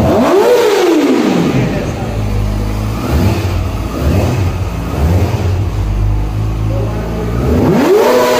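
Kawasaki ZX-6R's 636 cc inline-four engine revved in neutral: one sharp rev just after the start that falls back over about a second and a half, three short throttle blips in the middle, and another big rev near the end, settling to idle in between.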